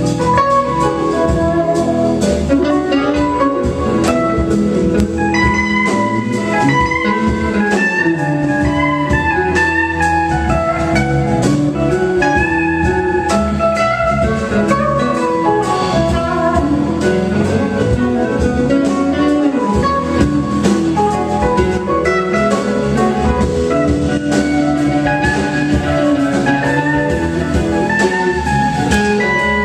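Live rock band playing an instrumental jam, with a lead guitar playing runs of notes over bass, keyboards and a drum kit.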